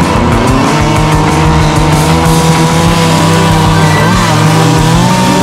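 Echo CS-2511P top-handle two-stroke chainsaw running at high revs. Its pitch rises as the throttle opens at the start, with a brief dip and recovery about four seconds in.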